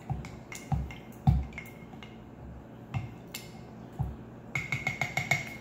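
Muddler crushing lime slices and mint in a glass mason jar: a handful of irregular dull thuds, the loudest about a second and a half in, then a quick run of about eight taps near the end.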